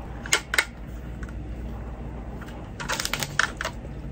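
Hard plastic clicking and knocking from a toothbrush sterilizer's hinged case as a toothbrush is pushed around inside to make it fit. Two sharp clicks come within the first second, then a quick flurry of clicks about three seconds in.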